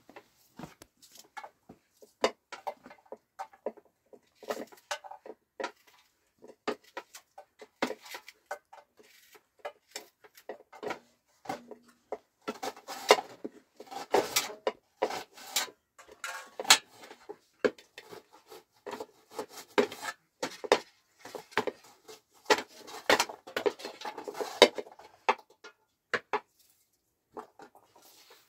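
Irregular clatter of small knocks, taps and rubbing as objects are handled, busiest in the middle stretch.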